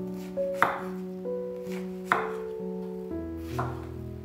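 Chef's knife slicing through a zucchini and knocking on a wooden cutting board, three sharp cuts about a second and a half apart, over background music.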